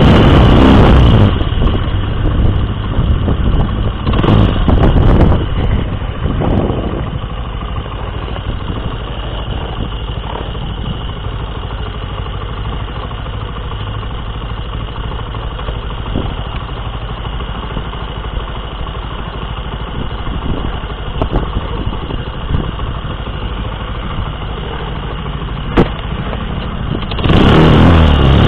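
Motorcycle engine running steadily, heard from a camera mounted on the bike. A loud rush of wind noise over it drops away about a second in and comes back near the end.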